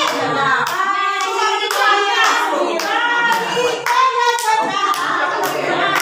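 A group of people singing a song together while clapping along in time, about two claps a second.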